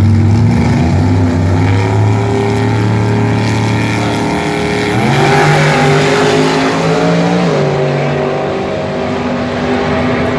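Drag-race cars, a Pontiac Trans Am and a third-generation Camaro, running at the starting line, then launching about five seconds in. Their engine pitch rises sharply and then steps with each gear change as they accelerate away down the strip.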